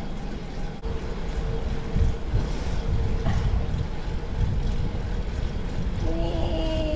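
Wind rushing over the action-camera microphone and gravel-bike tyres rolling on asphalt during a steady ride, a low continuous rumble.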